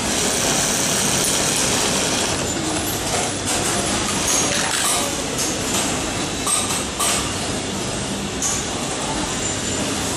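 Steady workshop machinery din, as in a garment sewing room, with scattered short clicks and clinks.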